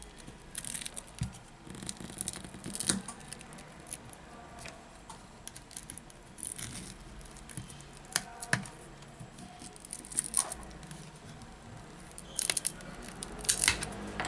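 Small hand tool clicking and scraping against the edge of a Samsung Galaxy J6 Plus smartphone's frame and display during a display replacement, with handling knocks. The sounds are short and irregular, a dozen or so scattered through.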